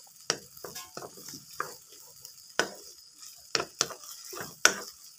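Spatula scraping and stirring a thick canned-fish chili paste around a hot oiled pan, in irregular strokes over a steady faint sizzle of frying. The loudest scrape comes near the end.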